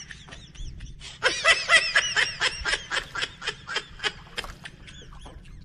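A person laughing: a long run of quick, high-pitched laugh pulses, about six a second, that fades out about two-thirds of the way through.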